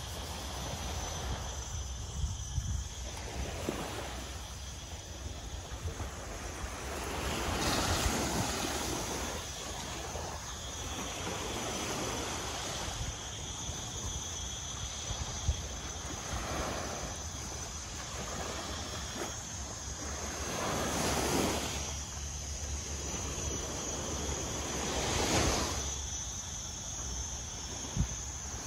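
Small waves breaking and washing up a sandy shore, swelling every few seconds, with wind rumbling on the microphone.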